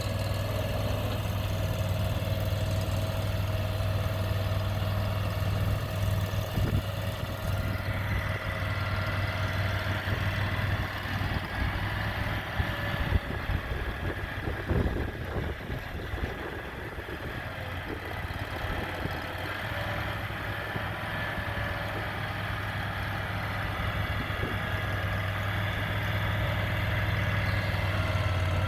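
Mini skid steer loader's engine idling at a steady speed. A higher whine joins about eight seconds in, with a few light knocks near the middle.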